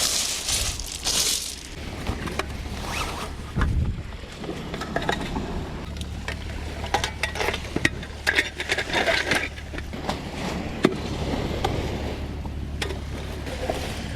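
Irregular scraping, knocking and clinking of gear being handled aboard an inflatable packraft.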